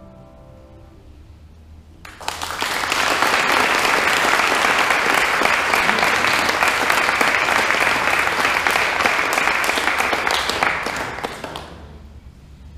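Audience applauding for about nine seconds: the clapping starts about two seconds in, holds steady, and dies away near the end. Just before it, the last sung chord of the a cappella vocal group fades out in the church's reverberation.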